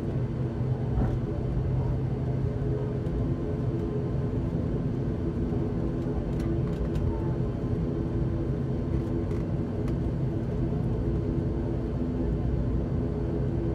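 ATR 72-600's Pratt & Whitney PW127 turboprop engine and propeller running at taxi power, a steady droning hum with a low, even propeller tone, heard from inside the cabin.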